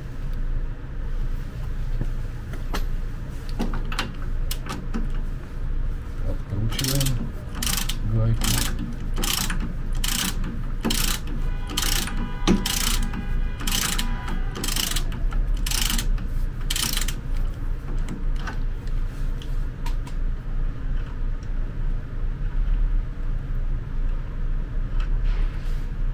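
Ratchet wrench worked in a regular series of about fourteen clicking strokes, roughly 0.7 s apart, on the pivot nut of a power wheelchair's front caster fork. A steady low hum runs underneath.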